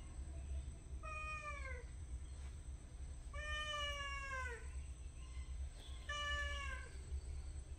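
Domestic cat meowing three times, each call falling in pitch, the middle one the longest.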